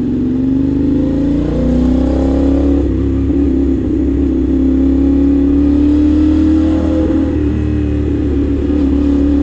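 CFMOTO 450SR's parallel-twin engine running at low revs while filtering through slow traffic. Its note steps up about two seconds in, then rises gently and steadily as the bike pulls forward.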